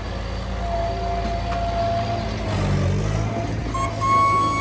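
Bobcat skid-steer loader's engine running steadily at a low pitch, with a few thin, higher steady tones over it.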